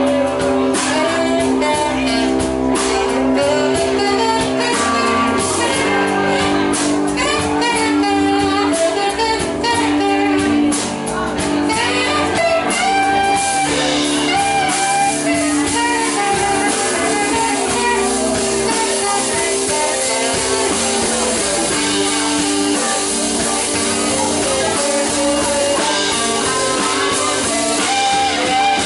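Live blues band playing a slow blues: electric guitars over bass, drums and keyboard, with sustained, bending guitar lines in the first half.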